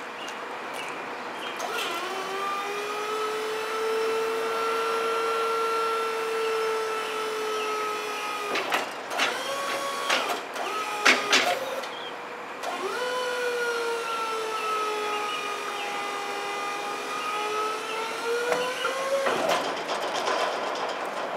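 Motor of a trash-bin cleaning trailer's dual bin lifter whining steadily for about six seconds as the lifter arms go down, then several metallic clanks, then a second run of about six seconds as the arms come back up.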